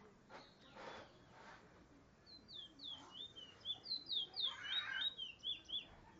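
Trinidad bullfinch (chestnut-bellied seed-finch) singing a fast run of short, high, slurred notes, about four or five a second, starting about two seconds in.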